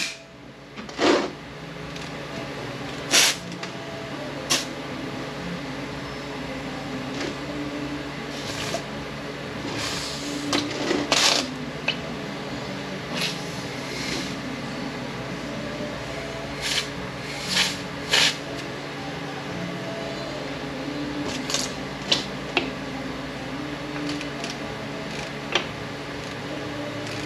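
Metal transmission parts being handled on a workbench: scattered clicks, clinks and knocks at irregular times over a steady low workshop hum.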